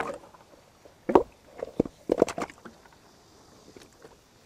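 Water splashing and stones knocking as rocks are handled and rubber boots step through a shallow rocky tide pool. The sharp knocks and splashes bunch between about one and two and a half seconds in.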